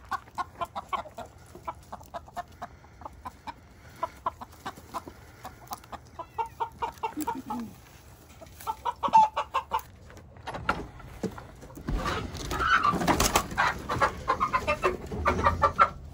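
Backyard chickens clucking repeatedly, many short calls one after another, with a louder, noisier stretch of scuffling near the end.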